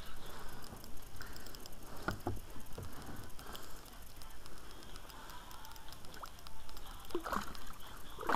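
Small splashes and water lapping at the boat's side as a hooked pike is led toward a landing net in the water, with a couple of sharper splashes near the end.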